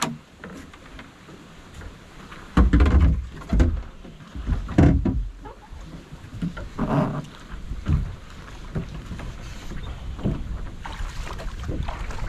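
Choppy water sloshing and slapping against a small sailboat's hull, with wind buffeting the microphone. Several irregular low thumps come through, the loudest about three and five seconds in.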